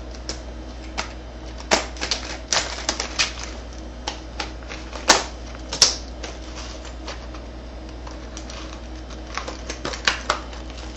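Retail packaging of a door lock cylinder being opened by hand: irregular clicks, snaps and rustles, the two loudest snaps about five and six seconds in, over a steady low hum.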